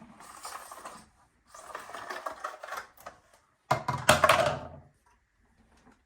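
Handling noises of an electric hedge trimmer and its packaging: rustling, knocking and clattering in irregular patches, with a louder clattering burst about four seconds in.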